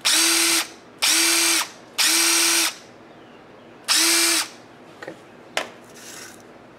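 DeWalt DCF880 20-volt cordless half-inch impact wrench spinning free with no socket and no load, in four short trigger pulls of about half a second each, the last after a longer pause. Each pull is a steady motor whine with no hammering.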